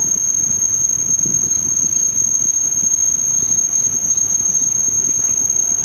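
A steady, high-pitched whine held at one unchanging pitch, over a low rumbling noise.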